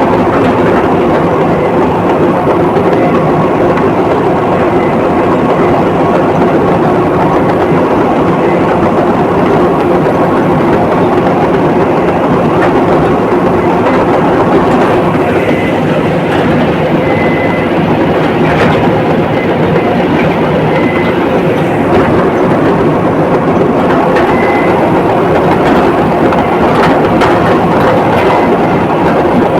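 Komatsu D85ESS crawler bulldozer running steadily, its diesel engine and steel tracks making a loud, continuous mechanical noise, with a few short high tones and sharp clanks in the second half.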